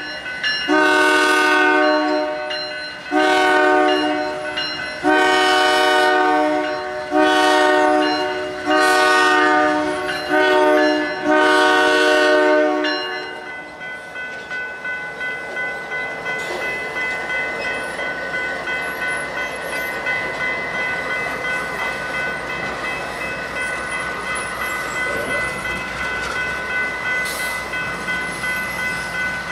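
Canadian Pacific GE AC4400CW locomotive's multi-note air horn sounding a run of blasts for a grade crossing, stopping about thirteen seconds in as the lead unit reaches the crossing. The crossing warning bell then rings steadily while the train rolls past, its wheels clicking over the rail joints.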